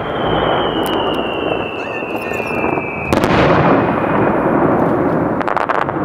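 Fireworks: a whistling shell's steady whistle sliding slowly down in pitch for about three seconds, cut off by a loud burst, followed by rumbling echo of further shells and a quick cluster of sharp crackles near the end.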